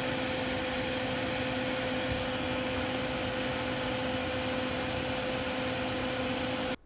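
Steady whirring hum of a small electric fan: an even hiss with a constant low tone beneath it, cutting off abruptly near the end.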